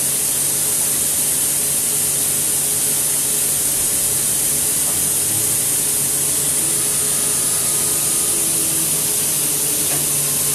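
Steady loud hiss of air from a Mecof Airone 165 CNC gantry milling machine, over a faint low hum. A faint motor whine joins it in the latter half as the machine's two-axis milling head swivels upright.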